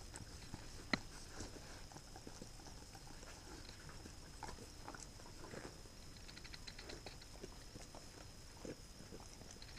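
Two Pembroke Welsh corgis licking and chewing herring roe from a person's hands: faint wet smacking and small clicks, with one sharper click about a second in.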